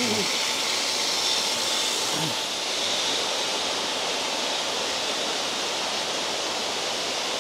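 Steady rush of running water at a koi pond, an even hiss that holds at one level throughout.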